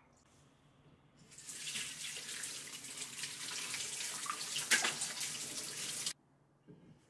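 Kitchen tap running in a steady stream for about five seconds, starting about a second in and shut off suddenly near the end.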